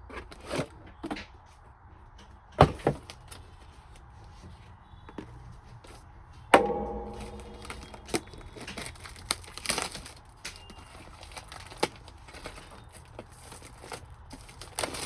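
Handling noises while a PC power supply is fitted into a steel desktop cabinet: scattered knocks, clicks and rustles, with one loud metal clank about six and a half seconds in that rings briefly as it fades.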